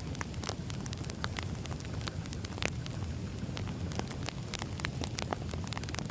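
Wood fire crackling: frequent irregular sharp pops and snaps over a low steady rumble of burning logs.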